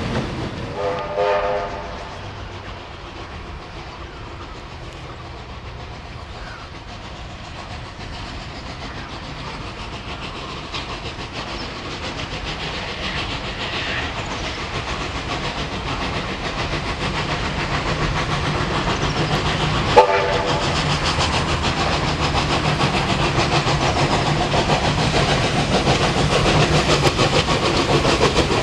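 Steam locomotive drawing closer, its exhaust and running gear growing steadily louder with a fast rhythmic beat, and two short whistle blasts: one about a second in and one about twenty seconds in.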